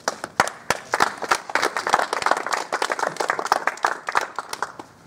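A group of people applauding, many hands clapping together; the applause thins out near the end.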